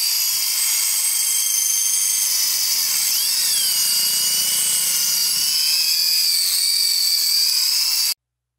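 Angle grinder with a cutting disc running at speed, a steady high whine; its pitch dips and recovers about three seconds in. The sound cuts off suddenly near the end.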